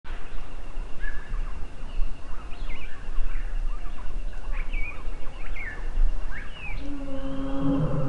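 African paradise flycatcher giving short, sharp scolding calls at irregular intervals, a sign of an agitated bird. Under it runs a steady low rumble, and near the end a low droning tone comes in.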